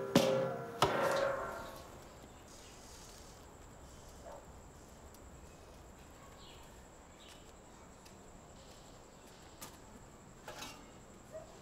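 Metal cookware clanking twice in the first second, with a short ringing tail. After that, quiet ambience with a faint steady high whine and a few soft knocks near the end.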